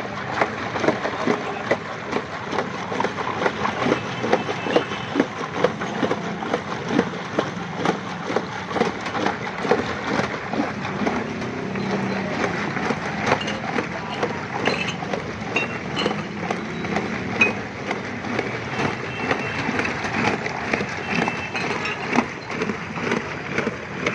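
Ice chunks clattering and knocking against a large metal pot as a long paddle churns a batch of mango milkshake with milk, in repeated irregular strokes, over a steady background hubbub.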